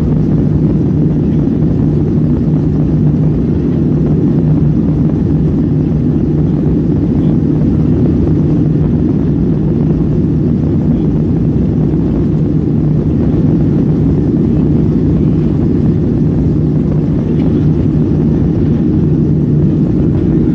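Boeing 737-500's CFM56-3 turbofan engines at takeoff thrust, heard from inside the cabin over the wing during the takeoff roll: a loud, steady roar with a constant low hum.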